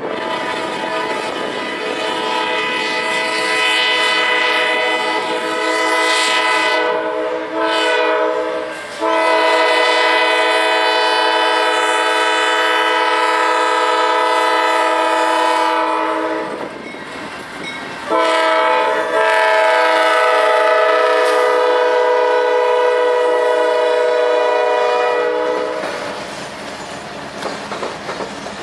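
Norfolk Southern diesel freight locomotive's multi-chime air horn sounding several long blasts with short breaks, as the train passes close by. The horn stops near the end, leaving the clickety-clack of freight cars rolling past.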